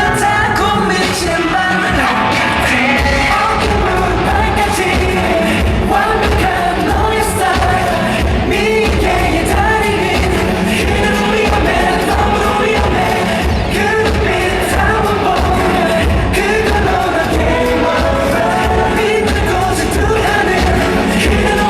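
Live pop music in a concert hall: a male singer over a band or backing track with a steady, driving beat.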